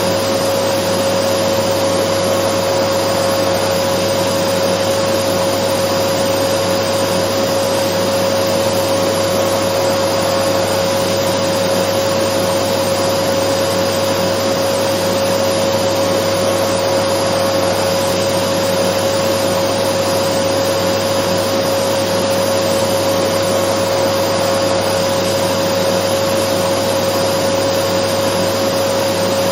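Dyson vacuum cleaner running steadily without pause: a constant rush of air with a steady motor whine.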